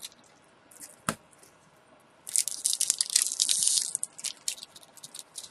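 A candy package being opened by hand: a single click about a second in, then a couple of seconds of dense crinkling and tearing, followed by scattered small ticks.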